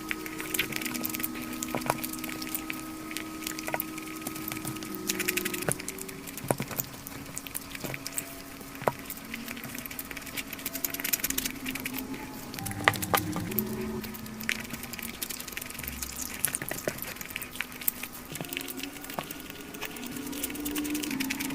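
Crispy fried chicken being bitten and chewed close to the microphone: irregular crunches and crackles of the fried coating throughout.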